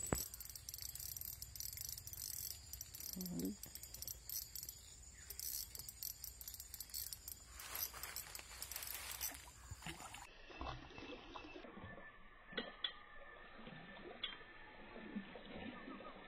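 Insects chirring steadily for about the first ten seconds. Then, at a cut, the sound turns duller, with a few sharp clicks and faint irregular knocks.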